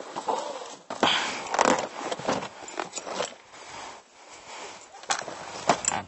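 Gear being handled around an inflatable boat: a run of irregular knocks, clicks and rustles.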